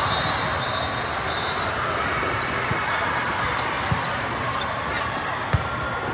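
Volleyball rally in a large indoor hall: two sharp hits of the ball, about four and five and a half seconds in, over a steady din of voices and play from the surrounding courts.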